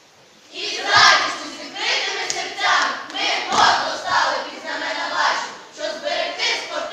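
A group of children shouting a team chant in unison, in loud, evenly paced syllables that start about half a second in.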